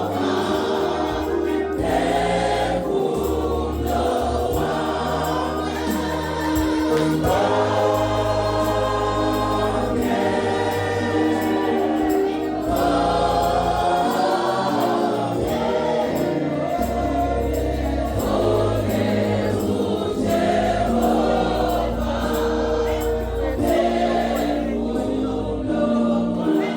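A choir singing a gospel song over instrumental accompaniment with a bass line.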